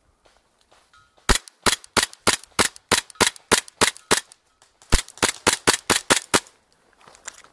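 KJW Glock 17 gas blowback airsoft pistol firing rapid single shots, each a sharp crack: about ten shots at roughly three a second, a short pause, then six more.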